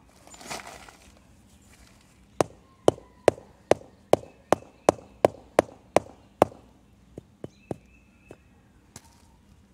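Rubber mallet tapping a concrete paver to seat it in its sand bed: a short scuffing sound near the start, then a steady run of about eleven sharp knocks, two or three a second, followed by a few lighter, irregular taps.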